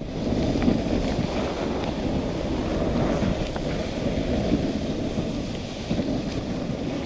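Dog sled gliding along a snowy trail: a steady rushing noise of the runners over snow, with wind on the microphone.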